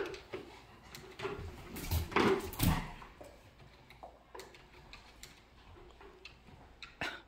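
A dog tugging at a cracked plastic bucket: crackling plastic and knocks, loudest about two to three seconds in. Then scattered light clicks and taps.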